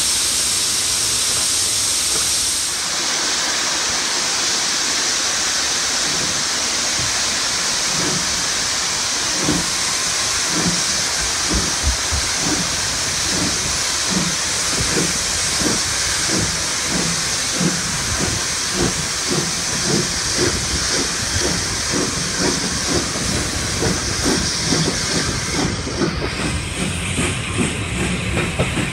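Steam train pulling away: a loud, steady hiss of steam from the locomotive. From about eight seconds in, a rhythmic clatter of the moving train sets in and quickens as it gathers speed.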